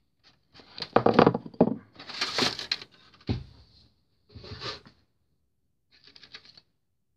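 Plastic packaging crinkling and rustling in several short, irregular bursts as it is handled, with one dull knock about three seconds in.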